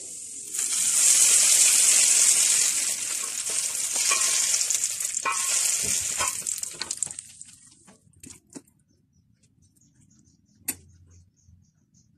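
Hot oil with fried garlic slices poured from a pan onto cooked sarson ka saag (mustard greens), sizzling loudly from about half a second in, then dying away over the next several seconds. Near the end come a few soft knocks and one sharp click.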